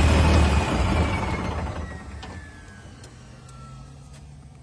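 Old bulldozer's engine running hard, then throttled back: the sound drops off over about two seconds to a quiet idle, with a thin whine that falls slowly in pitch as it winds down.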